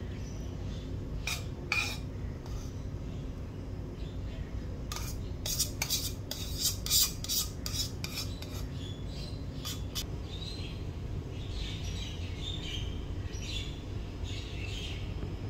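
Metal spoon scraping and clicking against cookware while spooning a thick, sticky glaze, with a quick run of clicks from about five to eight seconds in and softer scraping after, over a steady low hum.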